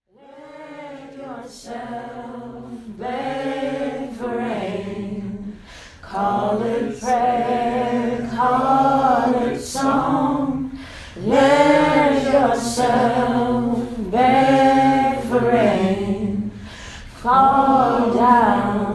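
Unaccompanied voices singing in short phrases, with no instruments: an a cappella score. It starts quiet and grows much louder about six seconds in.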